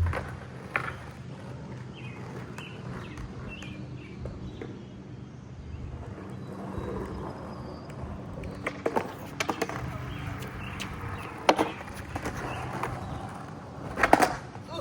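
Skateboard wheels rolling over pavement, with several sharp clacks and knocks of the board. The loudest comes just before the end.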